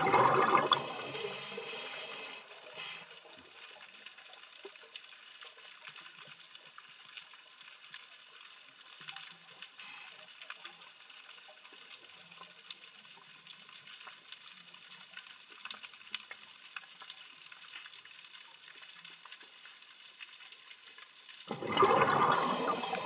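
A scuba diver's regulator breath, heard underwater: a gurgling rush of exhaled bubbles with a hiss, at the start and again near the end. In between, faint crackling and ticking.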